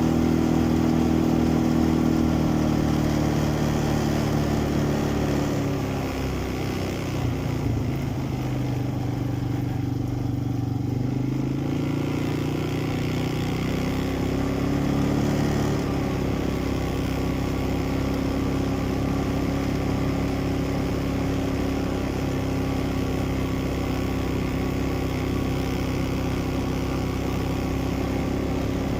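ATV engine running on the move; its pitch falls as it slows over several seconds, then rises again and holds steady.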